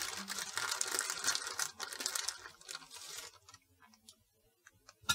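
Plastic bag crinkling as thawed rhubarb pieces are squeezed out of it into the neck of a glass fermenter, for about three seconds, then a few faint ticks and a sharp click near the end.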